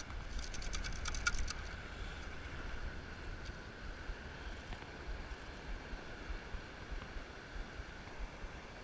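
Shells and grit rattling against the stainless-steel mesh of a T-Rex sand scoop as it is shaken to sift out a find, a quick run of clicks in the first second or so. After that, a steady low rumble of wind on the microphone and surf.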